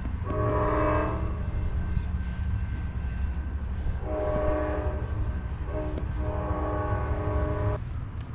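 BNSF freight train's diesel locomotive blowing its multi-tone air horn in the grade-crossing pattern of long, long, short, long, with a steady low rumble underneath.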